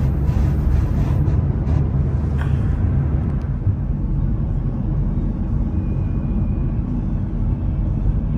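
Steady low rumble of road and engine noise inside a moving car's cabin, with a few faint ticks in the first few seconds.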